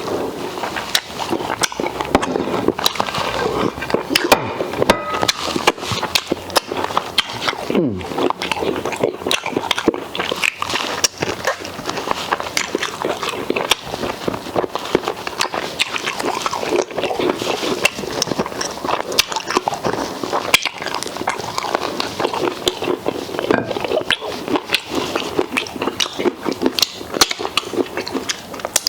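Close-up eating sounds of a person chewing and slurping fufu and okra soup, a steady run of wet mouth clicks and smacks.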